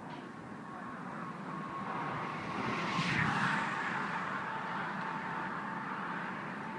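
A vehicle passing by, its noise swelling to a peak about three seconds in and then easing off, with a faint steady whine underneath.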